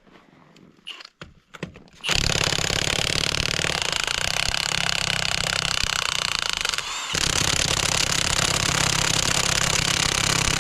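Impact wrench hammering on a wheel lug nut, starting about two seconds in after a few faint knocks and running in two long bursts with a brief let-up near the middle.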